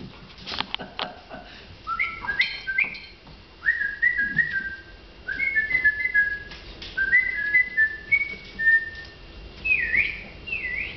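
Bullmastiff puppies whining in high, whistle-like notes as they play-wrestle: a run of short stepped whines, sometimes two at once, then a couple of dipping glides near the end. A few sharp clicks come in the first second or so.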